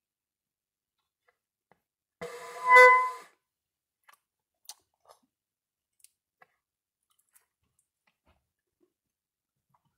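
Saxoflute, a saxophone mouthpiece and neck taped onto a flute body, sounding one short note about two seconds in that swells louder and stops after about a second. A few faint clicks follow as the instrument is handled.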